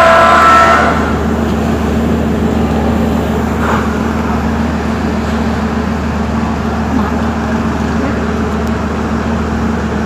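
A Sri Lanka Railways S13 diesel multiple unit's horn, a loud chord of several tones, cuts off about a second in. It is followed by the steady low hum of the set's diesel engine running.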